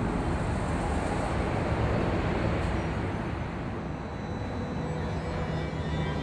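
Steady outdoor rushing noise, with faint sustained music tones coming in from about halfway.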